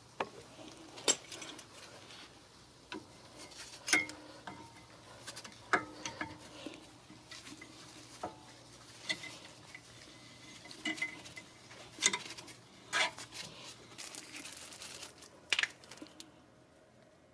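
Metal clinks, taps and clicks of a screw-type caliper spreader tool being fitted and worked against a brake caliper to push the piston back, coming irregularly every second or two. A faint steady low hum runs beneath and stops near the end.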